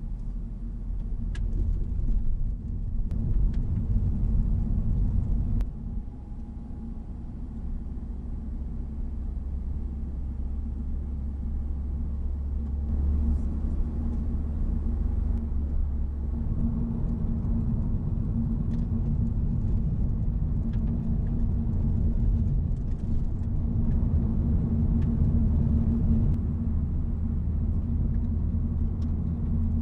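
Honda Civic Type R's 2.0-litre turbocharged four-cylinder engine and road noise, a steady low rumble while driving, heard from inside the cabin. The engine note drops about six seconds in and builds up again from about sixteen seconds.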